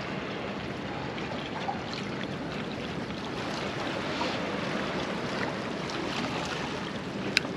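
Steady wash of sea water against the boulders of a rocky breakwater, with some wind. A single brief sharp tick near the end.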